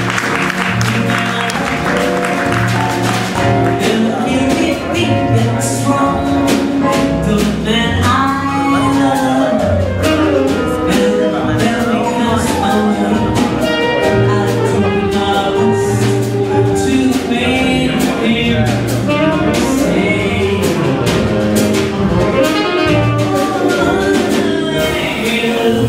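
Live jazz group playing, with a tenor saxophone leading over piano, double bass and drum kit. Audience clapping fades out in the first couple of seconds.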